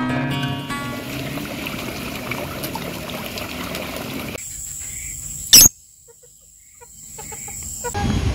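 Outdoor nature ambience by a garden pond: steady water noise with birds and insects. The last notes of a guitar tune fade out in the first second. Partway through, a high steady tone comes in, with one sharp click about five and a half seconds in and a short quiet spell after it.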